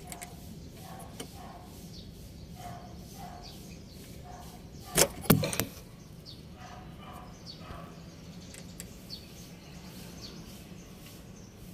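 Birds chirping faintly over a steady low background hum. Two sharp clicks come close together about five seconds in.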